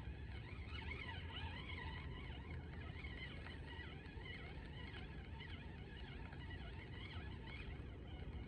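Birds chirping over a low, steady rumble.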